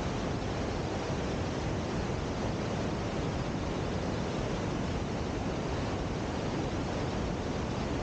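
Steady rushing of a waterfall and river at the bottom of a gorge: a dense, even wash of water noise that does not let up.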